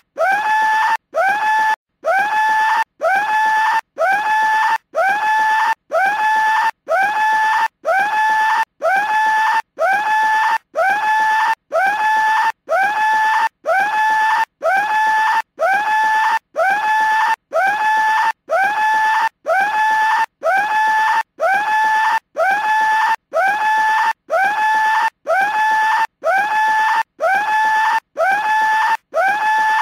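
Skull-shaped telephone ringing with a scream instead of a bell: one high scream about every second, each swooping up in pitch and then holding, with a short silent gap between screams, repeating over and over at the same loudness.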